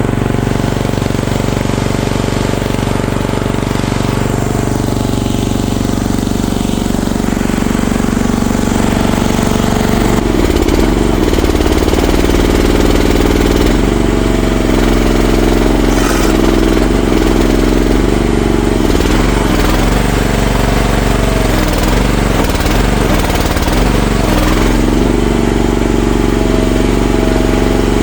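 CFG MX15RX mini excavator's engine running steadily. About ten seconds in it gets a little louder and its pitch starts to waver.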